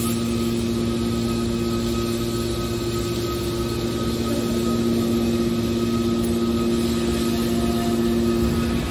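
Hydraulic waste metal baler running: a steady machine hum with a constant whine that holds even throughout.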